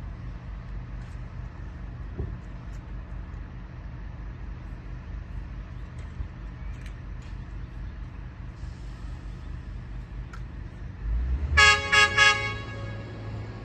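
Diesel locomotive's multi-tone air horn sounding three quick blasts near the end, over a steady low rumble.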